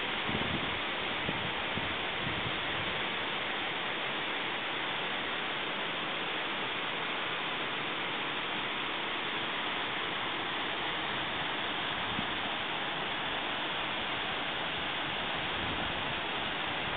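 Steady rushing of a shallow, rocky mountain river, an even hiss with no change, with a few soft low bumps about a second in.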